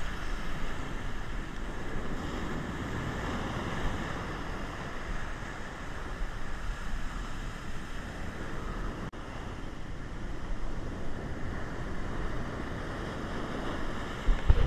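Heavy surf washing in and foaming over the sand: a steady rushing that swells and eases with the waves, with wind rumbling on the microphone.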